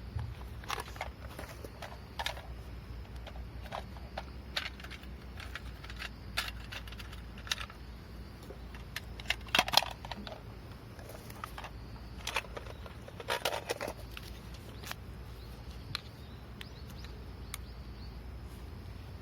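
Irregular clicks and knocks, with a denser clatter about ten seconds in and again about thirteen seconds in, over a steady low hum.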